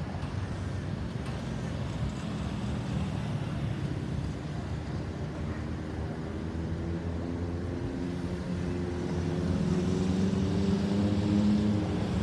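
Road traffic with a motor vehicle's engine drawing nearer: its hum grows louder over the last several seconds and rises slightly in pitch.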